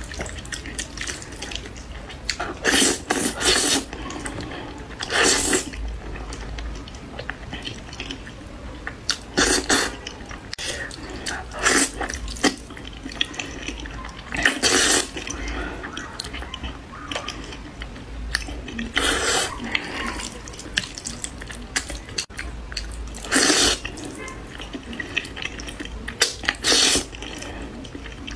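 Wet slurping of saucy noodles being sucked in off chopsticks, about eight loud slurps spaced a few seconds apart, with soft mouth sounds of chewing between them.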